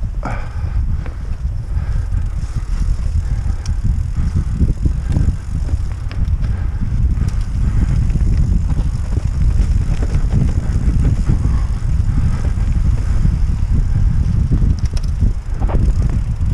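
Mountain bike riding fast downhill: wind rumbling on the microphone, with scattered knocks and rattles from the bike over the rough ground.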